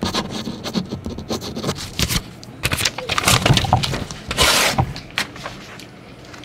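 Paper rustling and handling with light knocks and clicks at an office counter, loudest as a crackling rustle about four and a half seconds in.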